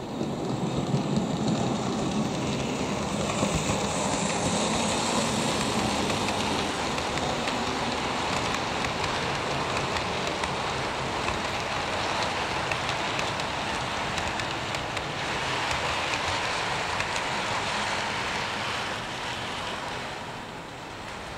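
A 00-scale model train running along the track past the camera, giving a steady rushing rattle of wheels on rail. The rattle eases off near the end as the coaches move away.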